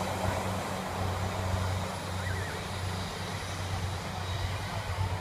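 Diesel multiple-unit passenger train running along the sea wall as it moves away, its engines giving a steady low drone over a background hiss of surf and beach.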